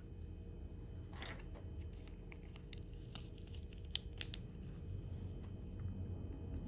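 Small sharp clicks and taps of a key fob's plastic parts and coin battery being handled and fitted back together: one click about a second in, then a quick run of three near the middle, over a low steady hum.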